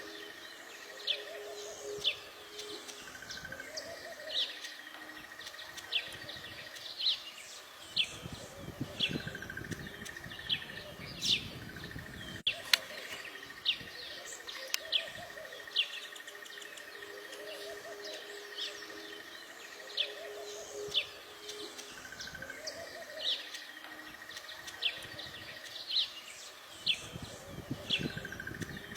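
Weaver birds chirping: short, sharp high calls repeating about every second, over a faint steady high buzz.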